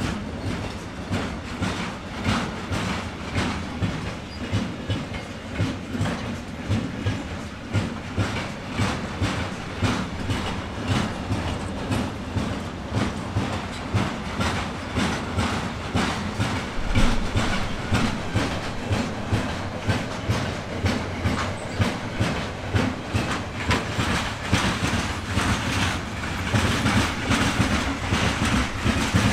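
A train passing close by, its wheels clicking over the rail joints in a steady clickety-clack of about two to three clicks a second. It grows louder near the end.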